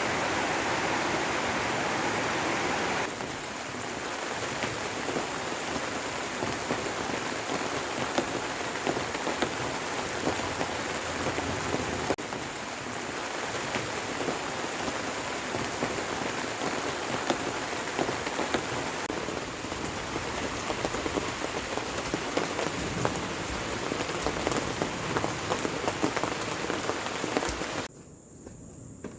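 Steady rain falling, with many sharp drop hits on a surface; the sound changes about three seconds in and cuts off abruptly near the end.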